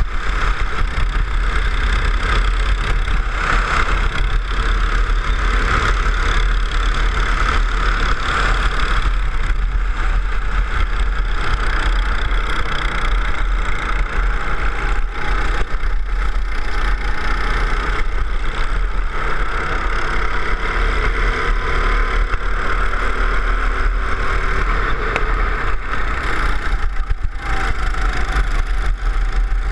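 Go-kart engine running at speed, heard from on the kart, its pitch rising and falling with the throttle through the corners, over a steady low rumble of wind on the microphone.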